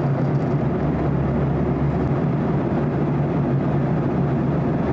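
Steady jet airliner noise: an even rush with a constant low hum underneath, unchanging throughout.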